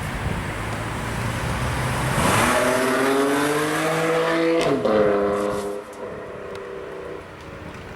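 BMW M4 GTS's twin-turbo straight-six accelerating hard, its note climbing for about two seconds, then dropping suddenly about five seconds in with a few sharp exhaust pops at the loudest point. The lower note then fades away, with faint crackles.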